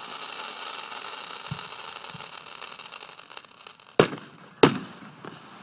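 Aerial fireworks: a long, dense crackling hiss from a burst shell, with two faint low thumps partway through, then two loud, sharp shell bursts about half a second apart near the end, each echoing.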